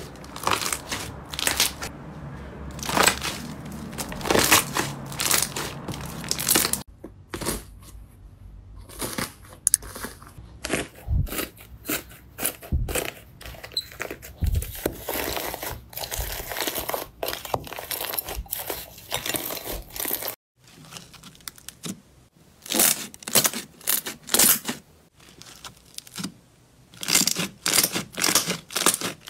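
Hands pressing, squishing and pulling slime: dense runs of sticky pops, crackles and tearing sounds. The texture changes abruptly about seven seconds in, and again after a brief break about twenty seconds in.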